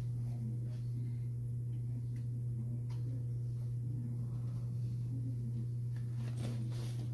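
Steady low hum of room tone, with a faint click about three seconds in.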